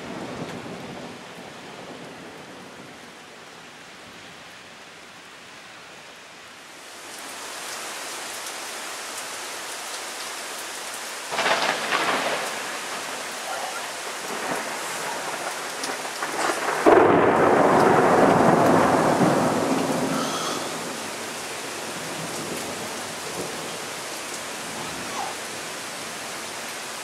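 Thunderstorm with rain hissing steadily, the rain growing heavier about a quarter of the way in. A sudden crack of thunder comes just before the middle, and past the middle a long, loud peal of rolling thunder lasts a few seconds before dying back to the rain.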